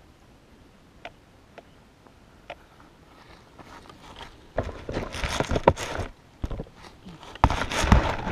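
Dry grass crunching and rustling right against a ground-level GoPro as a person steps up beside it and crouches, then rough handling noise as the camera is picked up near the end. Before that only a few faint clicks.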